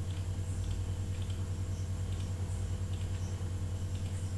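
A few faint computer mouse clicks as beams are selected one by one with Control held, over a steady low hum.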